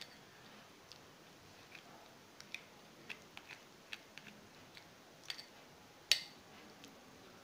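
Metal spoon stirring a thick face-pack paste of gram flour in a glass bowl: faint, irregular clicks and scrapes of the spoon against the glass, the sharpest about six seconds in.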